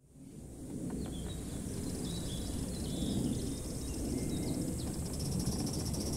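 Outdoor ambience: a steady low rumble with a few faint, short bird chirps. Near the end the rapid exhaust beats of an approaching gauge 1 live-steam locomotive begin to come in.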